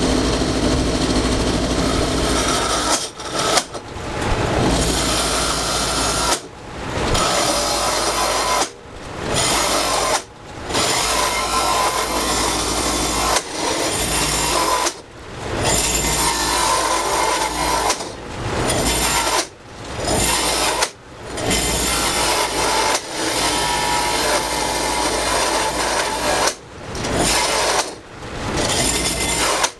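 Power tool cutting into a wooden bowl blank cut from a 2x4, working the back side of the bowl. The cutting noise is steady but breaks off about every one to three seconds, each time for a moment, then builds straight back up.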